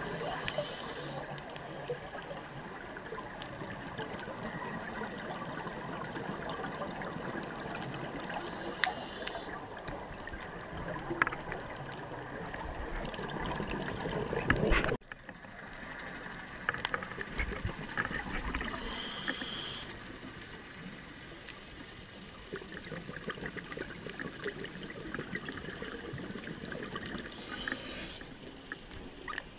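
Scuba diver breathing through a regulator underwater: a short hissing inhale about every nine seconds, four times, with gurgling and bubbling of exhaled air in between. About halfway a louder surge of bubbling cuts off abruptly.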